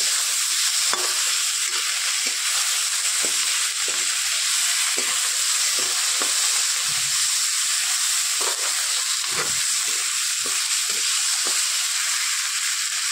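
Onions, tomato and ginger sizzling steadily in hot oil in a kadhai. A metal ladle scrapes and knocks against the pan at irregular intervals as the mixture is stirred.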